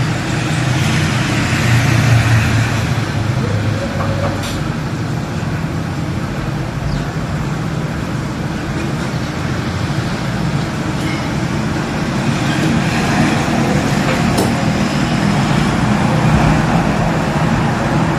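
Steady background noise with a low rumble, broken by two short sharp clicks about four and a half and fourteen and a half seconds in.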